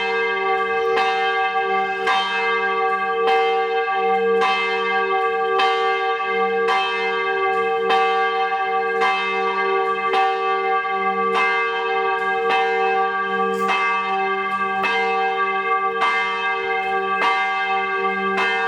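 A church bell tolling at a steady pace, struck a little less than once a second, each stroke ringing on under the next so that a continuous hum carries between strokes.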